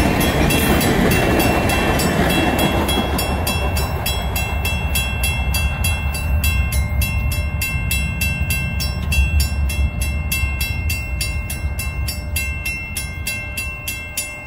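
Railway level-crossing bell ringing steadily at about four strokes a second, slowly fading. Under it, in the first few seconds, the rumble of a passing VIA Rail passenger train's last stainless-steel cars dies away.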